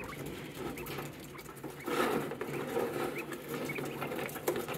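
Quail giving a few short, soft rising peeps over a light pattering and scratching of the birds moving about a plastic feeding tub, which gets busier about two seconds in.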